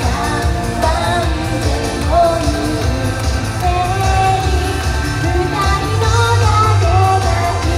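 Japanese idol pop song performed live: young women singing into microphones over loud pop backing music with a steady, heavy bass beat.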